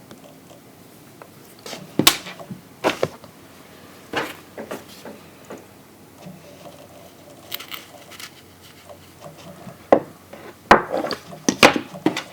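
Hard plastic clicks and knocks at irregular intervals from a Leo Prime Transformers action figure being handled, its parts snapping and knocking as they are moved. There is a cluster of louder clicks near the end.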